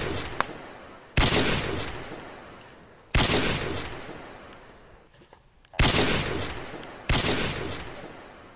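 Gunfire sound effects: four loud volleys, each starting sharply and dying away over a second or two, about one every one to two and a half seconds.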